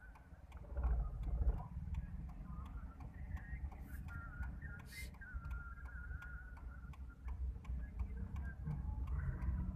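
Car driving slowly, heard from inside the cabin: a low engine and road rumble that swells about a second in and again near the end, with a soft regular ticking running through it.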